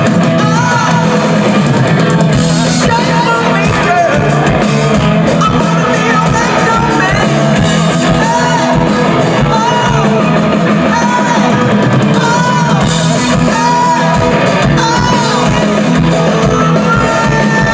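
Rock band playing live and loud: a male lead singer over electric guitar and drum kit, recorded from among the crowd.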